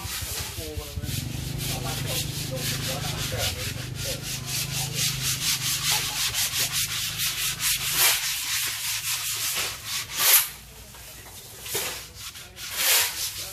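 Hand sanding of a wooden boat hull with sandpaper: quick, even back-and-forth strokes, roughly three a second, by more than one person working at once.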